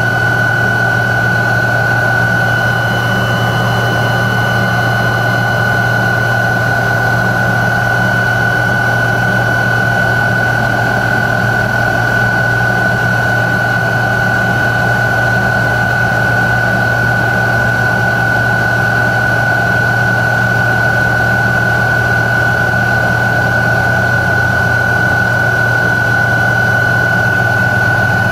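Tupolev Tu-134B-3 airliner's rear-mounted Soloviev D-30 turbofans running at low power while taxiing, heard inside the cabin. It is a steady, unbroken whine with a constant high tone over a low hum.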